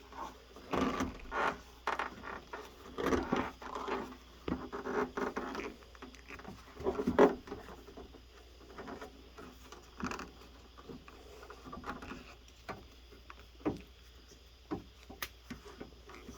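Rubber window gasket being worked down into a truck door's window channel: irregular rubbing, scraping and clicking as the rubber is pushed along the metal channel. It is busiest in the first seven seconds or so, then comes in sparser scrapes and clicks.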